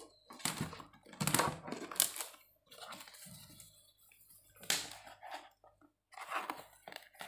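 Torn cardboard packing pieces rustling and crunching as hands rummage through them, in several irregular short crunches.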